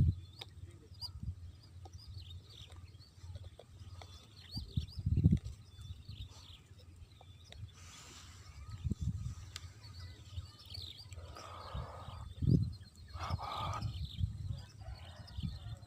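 Small birds chirping, with scattered low thumps and rumbles now and then.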